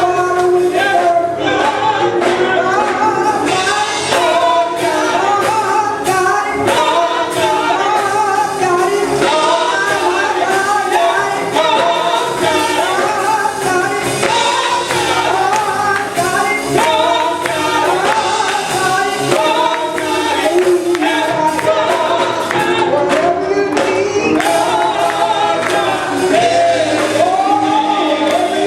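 A gospel choir singing with band accompaniment and a steady beat.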